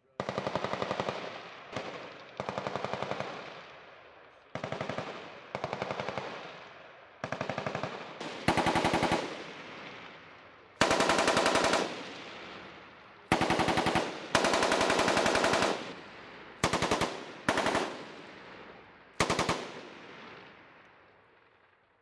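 M240B belt-fed 7.62 mm machine gun firing about a dozen short bursts of automatic fire, each from half a second to a second and a half long. An echo trails off after every burst.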